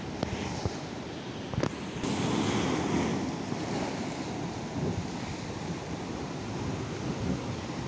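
Sea surf breaking and washing over rocks, with wind buffeting the microphone. Two sharp clicks in the first two seconds.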